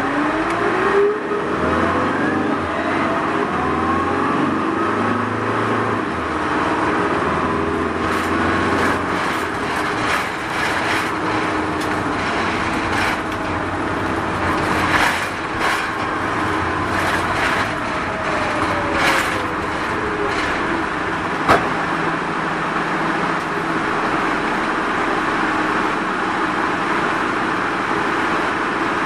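Mitsubishi Fuso Rosa minibus running on its route, heard on board: the engine and drivetrain whine rises in pitch as it picks up speed in the first few seconds, then falls as it slows around the middle. Scattered rattles and knocks from the bus run through it, with one sharp knock about three quarters of the way in.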